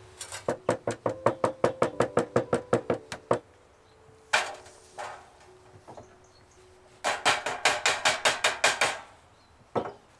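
A green-handled metal hand tool worked hard against a steel sheet on a wooden table: two quick runs of sharp metal strokes, about seven a second, with the sheet ringing faintly under them. A single sharp knock falls between the two runs.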